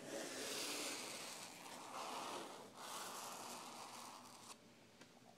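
Fingertips rubbing and scratching across a sheet of textured, printed paper in two long dry strokes, the first broken off about two and a half seconds in. The scratching dies down to a faint rustle about four and a half seconds in.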